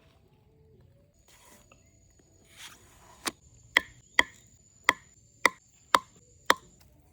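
Seven sharp, ringing knocks about two a second, like a blade chopping, after two soft rustles.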